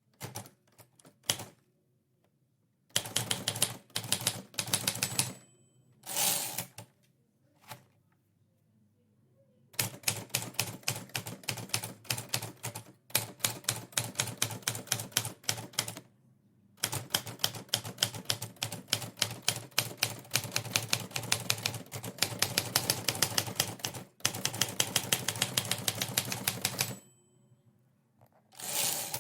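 Typewriter being typed on in fast runs of keystrokes, with short pauses and a few single strokes between the runs.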